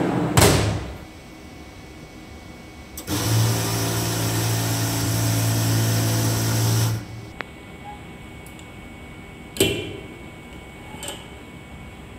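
A knock as the tray of a KAIOU DTG pretreatment spray machine is shut, then about three seconds in the machine runs for roughly four seconds: a steady motor hum with the hiss of the nozzle misting pretreatment liquid onto a garment, stopping abruptly. A sharp knock follows near the end.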